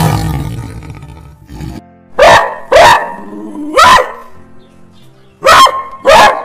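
Dog barking: five short, sharp barks in loose pairs, starting about two seconds in, over faint background music.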